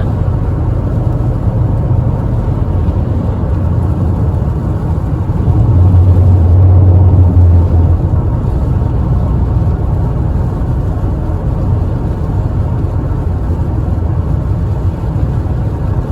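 Steady road and engine rumble inside a moving car's cabin, swelling louder for a couple of seconds around the middle.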